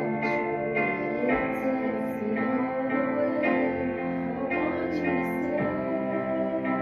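Music: a slow piece of held, layered notes that change every half-second to second.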